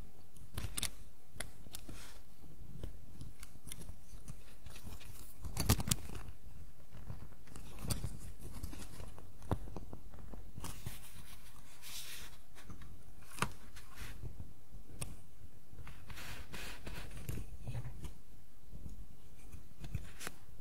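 Grey plastic parts of a Warhammer 40k Necron Plasmancer miniature being handled and pressed together by hand: small sharp plastic clicks and fingers rubbing on the plastic. There is a quick cluster of clicks about six seconds in, then single clicks a few seconds apart.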